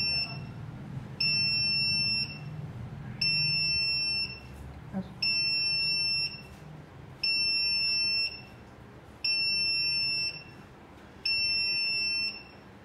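Electronic alarm buzzer of an NVR sounding a steady, high-pitched beep about a second long every two seconds: the alarm set off by the recorder's target-enter (intrusion) detection when a person walks into the marked zone.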